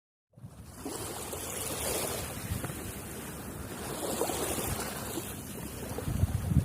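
Sea waves washing onto the shore, with wind on the microphone. The sound starts abruptly just after the beginning, then swells and eases twice as the waves come in.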